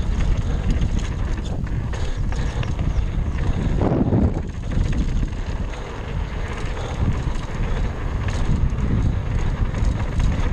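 Wind rushing over an action camera's microphone on a fast mountain bike descent, with tyres rolling over a dry dirt trail and the bike rattling over bumps. A brief louder rush comes about four seconds in.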